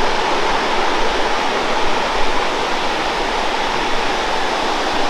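Blackwater Falls, a 57-foot cascade on the Blackwater River, giving a loud, steady rush of falling water.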